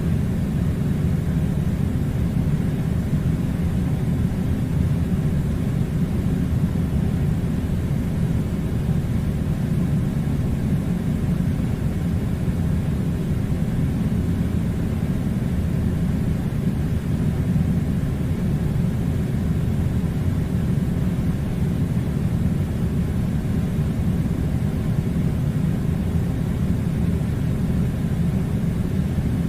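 Air conditioning running: a steady, low, rumbling blowing noise that does not change.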